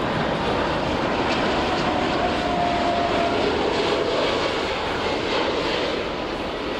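Boeing 747's four turbofan engines running at takeoff power as it lifts off: a loud, steady roar with a faint whine running through it.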